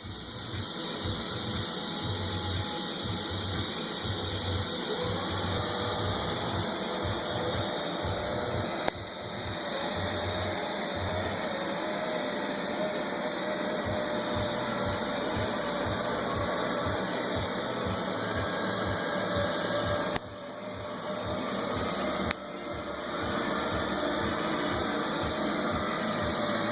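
Neato robot vacuum running in spot-clean mode: a steady whir of its suction fan and brush. It briefly drops in level and builds back up a few times.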